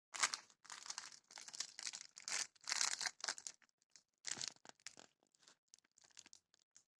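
Plastic shipping packaging being crinkled and torn open by hand, in irregular bursts that thin out to scattered crackles after about four and a half seconds.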